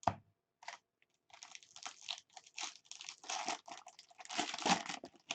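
Foil baseball-card pack wrappers being torn open and crinkled, a busy run of ripping and rustling that grows louder toward the end, after a brief thump at the start.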